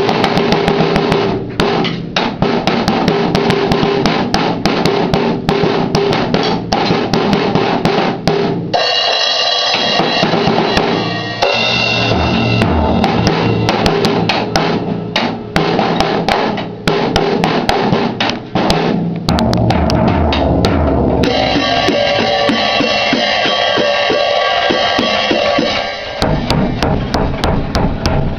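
Drum solo on a drum kit: rapid snare and bass drum hits, with two stretches of ringing cymbals, one about a third of the way in and a longer one near the end.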